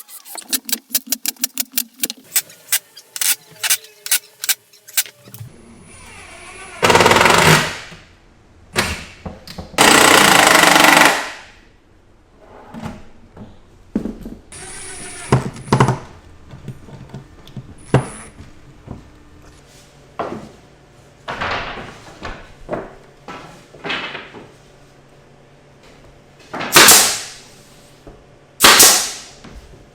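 Workshop tool noise: a rapid run of sharp clicks, then several loud one-second bursts of hissing noise with knocks and taps in between.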